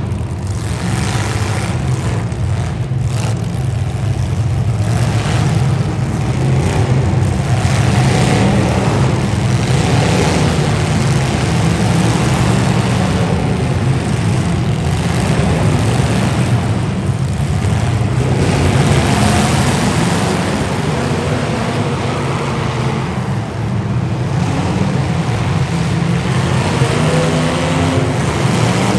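Derby car engines running and revving, rising and falling, over a heavy low rumble.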